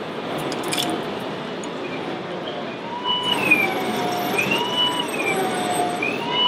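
Steady background noise of a busy hall, with a brief clinking about a second in. From about halfway, an electronic siren-like wail rises, holds and falls in pitch, repeating about every second and a half, over a thin high whine.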